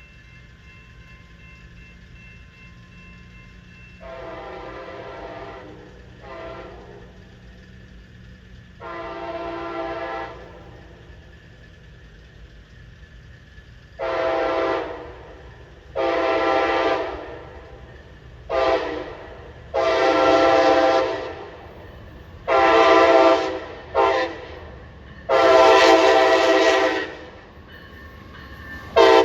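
Amtrak locomotive air horn sounding a chord in a series of blasts that grow louder as the train approaches. From about halfway in, the blasts fall into the long, long, short, long grade-crossing signal.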